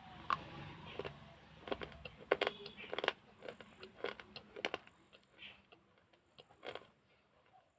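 Close-miked crunching and chewing of broken baked-clay pot pieces: irregular sharp cracks and crunches, thickest in the first half and thinning out toward the end.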